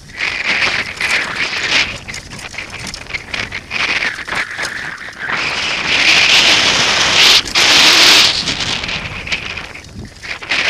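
Mountain bike descending a dirt forest track at speed: wind rushing over the microphone, with tyres crackling and scraping over the soil and leaf litter and the bike rattling over bumps. The rushing is loudest about six to eight seconds in.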